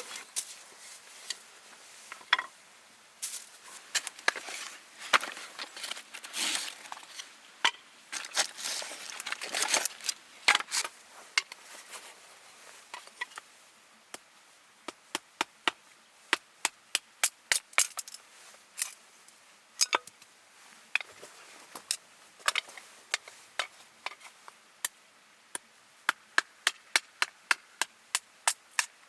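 Firewood being chopped into kindling: sharp wooden knocks and cracks. They come irregularly with some scraping at first, then settle into a quick, fairly even run of about two to three strokes a second in the second half.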